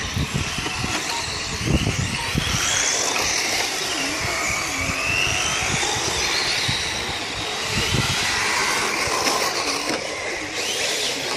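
Radio-controlled touring cars racing round a dirt track, their motors whining high and gliding up and down in pitch as the cars accelerate and slow for the corners.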